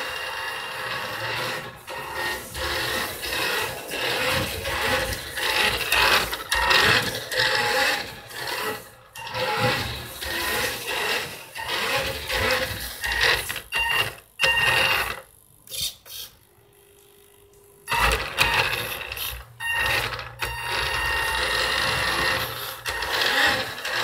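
Radio-controlled Porsche 934 RSR Turbo model car driving: its motor and gears whine in repeated short throttle bursts, stopping and starting, with a quieter pause about two-thirds of the way through.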